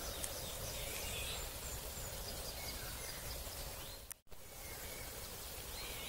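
Quiet forest ambience with a steady hiss and faint, high calls of small songbirds. Near the end, short rising chirps repeat a few times a second. The sound cuts out for a moment about four seconds in.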